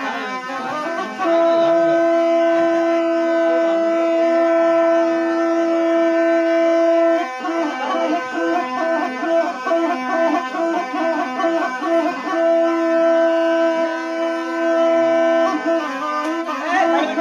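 Traditional devotional folk music on a reedy wind instrument over a continuous drone. Two long held notes are each followed by a run of quick short notes.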